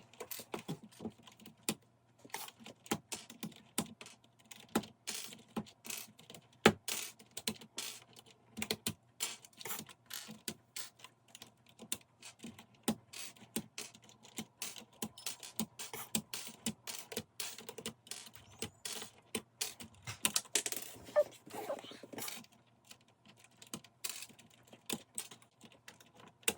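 Keycaps being pulled off an RK61 brown-switch mechanical keyboard: many irregular, sharp plastic clicks and clacks, a few to several a second.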